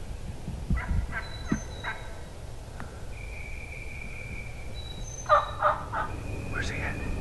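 Wild turkey gobbler gobbling twice: a rattling gobble about a second in, then a louder one about five seconds in. Songbirds whistle long, steady notes in between.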